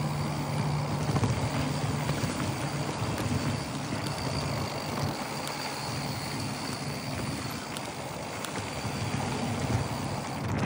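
Mountain bike riding down a dirt trail: knobby tyres rolling over loose dirt and gravel, with small clicks and rattles from the bike and wind noise on the handlebar-mounted microphone.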